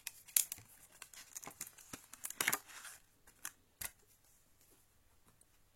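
Sharp clicks and a short rustle, ending about four seconds in, from the replacement SSD and small hardware being handled by hand during a laptop hard-drive-to-SSD swap.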